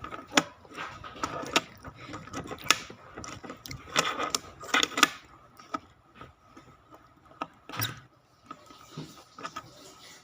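Irregular sharp plastic clicks and short rubbing sounds from an infinity cube fidget toy being flipped and folded in the hands.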